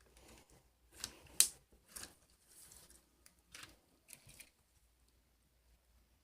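Slime being handled, giving a series of sharp clicks and pops. The loudest comes about a second and a half in, with fainter ones after.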